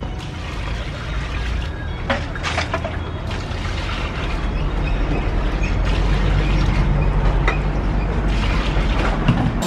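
Water poured from a scoop onto chopped meat in a plastic basin, with a hand sloshing and working the meat in the water. A steady low rumble runs under it and grows louder through the second half.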